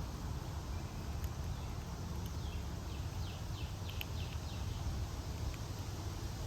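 A songbird gives a quick run of about seven short notes, each sliding downward in pitch, a couple of seconds in, over a steady low background rumble.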